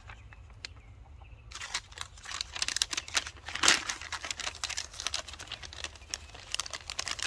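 Plastic sleeve of an MRE flameless ration heater crinkling as it is handled and unfolded. The crinkling starts about a second and a half in, after a few light clicks.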